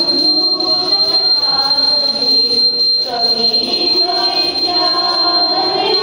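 Small brass temple hand bell (ghanti) rung without pause during aarti, giving a steady high ringing, with voices singing the aarti beneath it.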